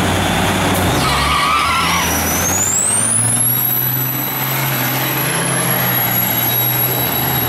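Diesel semi trucks launching and running at full throttle down a drag strip, with a high turbo whistle that rises steeply about two seconds in and then holds.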